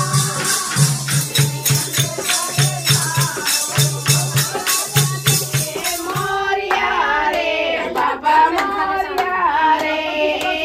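Devotional music: quick, even rattling percussion strokes over a low beat about once a second. About six seconds in it changes abruptly to a group of women singing a devotional song together, with hand claps.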